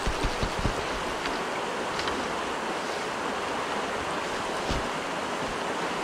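Steady rush of flowing river water, with a few short low thumps on the microphone in the first second.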